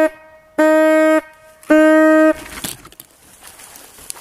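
Hunting horn blown in three short, steady, level notes, about half a second each, signalling game sighted during a hunt with hounds. After the last note it falls silent and only brush and leaf rustling remain.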